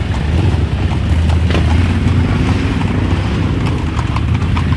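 Hooves of Camargue horses and black bulls clip-clopping on a paved road, with scattered sharp hoof strikes over a steady low rumble.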